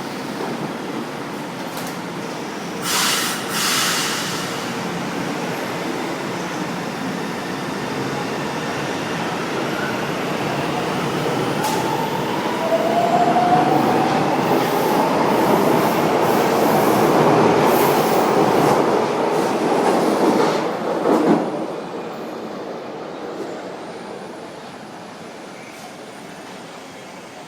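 São Paulo Metro Line 1 train running through the station: a rumble that builds to its loudest past the middle and then fades away, with a rising motor whine partway through and two short hisses near the start.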